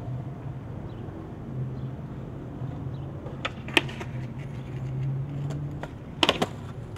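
Cars passing on a street: a steady low engine hum that swells and fades, with a few sharp clicks, the loudest a quick pair near the end.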